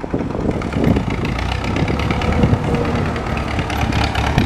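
Diesel engine of a crawler tractor with a dozer blade running as it works earth, a steady low engine drone with irregular knocks and clanks over it.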